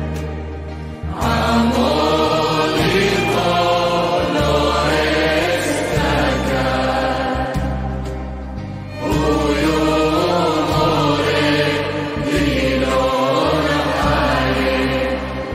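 Background music of choral chant: voices singing over low sustained bass notes, with brief lulls about a second in and again around eight seconds in.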